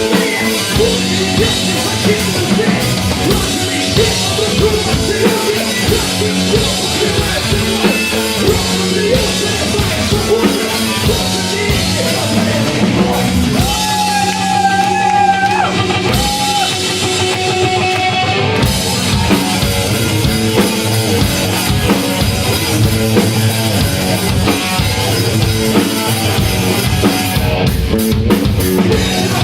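Rock band playing live: drum kit and electric guitar going at full volume, with a long high note held for about two seconds around the middle.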